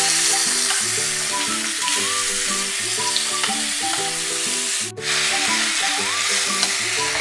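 Chopped onions sizzling in hot mustard oil in a metal kadhai, a steady loud frying hiss; in the second half a metal spatula stirs them through the pan. The sizzle cuts out for an instant about five seconds in.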